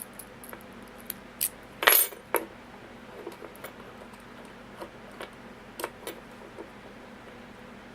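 Small metallic clicks and clinks from handling a padlock and its metal tools, irregular and spaced out, the loudest cluster about two seconds in.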